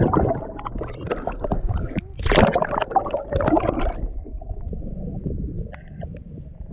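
Seawater splashing and gurgling around a camera held on a pole as it plunges under the surface beside a kayak, loudest as it goes in at the start and again from about two to four seconds in. After that a quieter low rumble of water.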